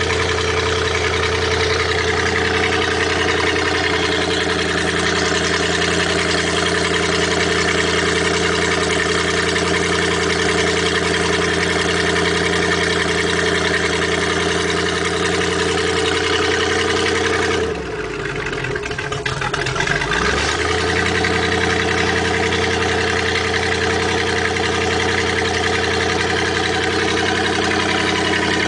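1989 Maxum boat's engine running steadily out through a homemade through-hull exhaust, with its carburettor not yet set to idle. About two-thirds of the way through the note drops and breaks up for a couple of seconds, then the engine steadies again.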